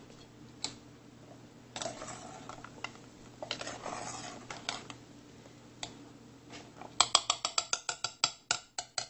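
Quail eggs sloshing in vinegar in a stainless steel pot as it is tilted, then a metal spoon clinking against the pot, a quick run of about seven clinks a second through the last two seconds.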